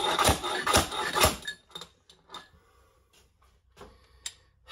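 Homemade slide hammer striking to pull a hardened, stuck seal out of a motorcycle fork's outer tube: sharp metal knocks about two a second, stopping about a second and a half in, then a few light clanks as the tool is handled.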